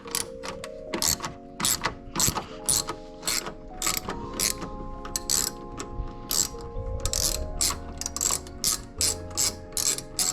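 Hand ratchet with a 10 mm socket clicking in repeated short strokes, about two to three clicks a second, as a tail light mounting bolt is backed out.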